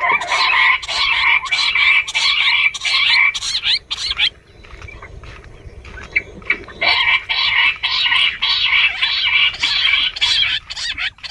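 Jungle bush quail calling: a dense chorus of rapid, chattering trills, in two bouts with a quieter gap of about three seconds between them. It is a quail-hunting lure call, used to draw quail in.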